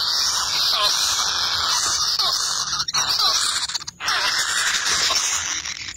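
Kingfisher nestlings calling to beg for food: a continuous harsh rasp with short falling squeaks repeating roughly every second, broken by two brief dropouts near the middle.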